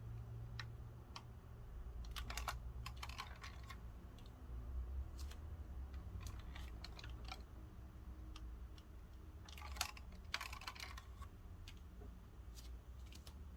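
Irregular light clicks and taps, with two short flurries of clattering about two seconds in and again about ten seconds in, over a steady low hum.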